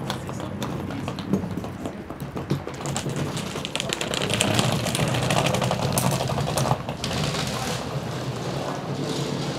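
Wheels of a rolling suitcase clattering over paving, a rapid run of clicks, over a steady low hum of street traffic.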